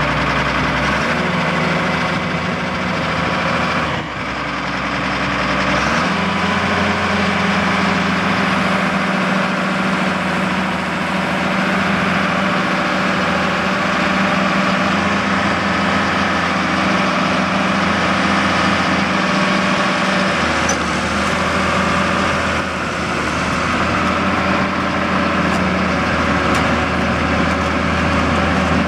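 Caterpillar 325BL excavator's six-cylinder diesel engine running steadily as the machine moves, its pitch and load shifting a few times, at about 1, 4, 6 and 20 seconds in.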